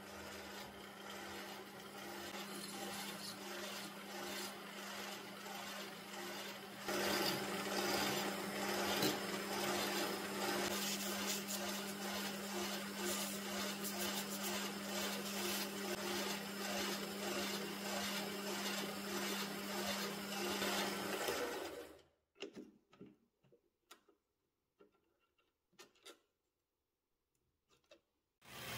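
Metal lathe running with a steady hum while a spinning brass screw head is sanded with hand-held sandpaper, the rubbing noise getting louder about seven seconds in. The lathe stops suddenly about twenty-two seconds in, leaving a few faint clicks.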